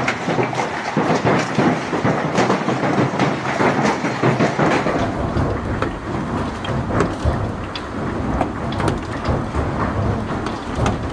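Heavy hail pelting down: a loud, dense clatter of countless hailstones striking. About five seconds in it changes to a sparser patter of single sharp clicks over a low rumble.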